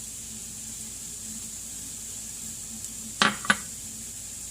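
Ground beef and cauliflower rice sizzling faintly and steadily in a frying pan, with two sharp clinks about a third of a second apart about three seconds in, typical of a spice container or utensil knocking against the pan.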